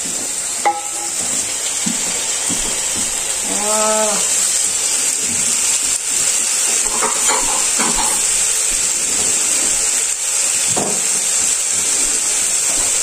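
Pieces of lamb neck and sliced onions sizzling steadily in hot fat as they brown in a pan.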